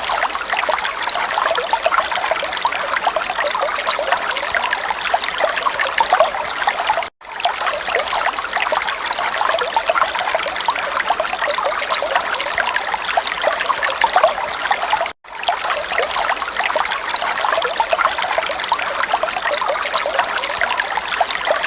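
Running water trickling steadily, broken twice by a brief silence about eight seconds apart.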